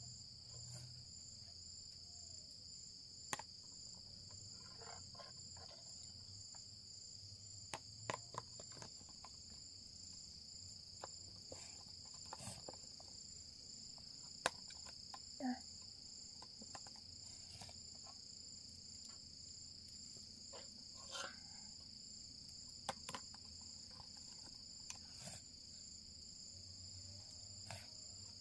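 Steady high-pitched insect chorus, with scattered small clicks and scrapes of a spoon against a steel pot and a plastic cup.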